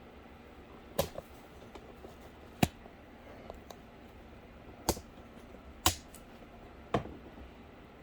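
Five sharp taps or clicks at uneven intervals, each brief, from handling small parts at a work surface.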